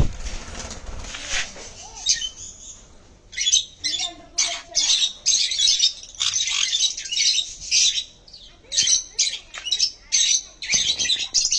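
Sun conure squawking: a run of short, harsh, high-pitched calls, about one to two a second, starting about three seconds in.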